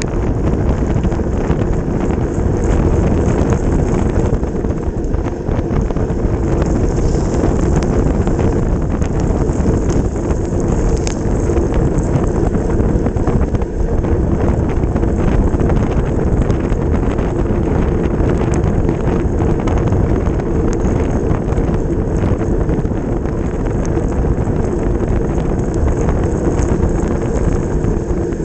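Steady, loud wind rushing over the microphone of a camera on a road bicycle ridden at race speed, with road noise from the bike underneath.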